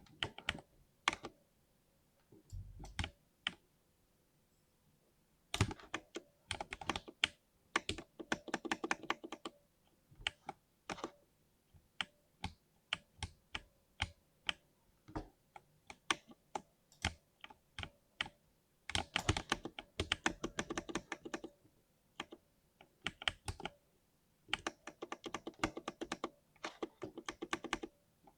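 Typing on a 60% mechanical keyboard with lubed switches: runs of fast keystrokes alternate with slower single key presses, with a pause of about two seconds a few seconds in.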